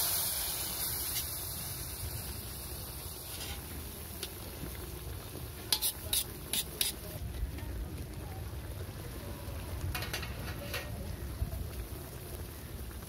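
Catfish pieces sizzling in oil and masala in a metal kadai as they are stirred, loudest at the start and then settling into a steady fizz. A few sharp clicks of the utensil on the pan come about halfway through and again a little later.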